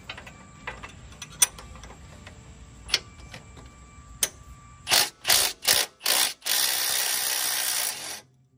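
RIDGID cordless impact wrench working an 18 mm sway bar link nut loose, its wrench held on the other end: a few sharp metal clicks at first, then four short bursts of hammering about five seconds in, followed by a steady run of nearly two seconds that stops near the end.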